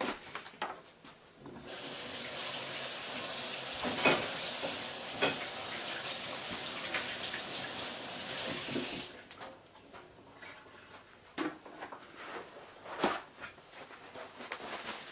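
Kitchen tap running as hands are washed under it, a steady hiss of water for about seven seconds before it is shut off. A few faint knocks and handling sounds follow.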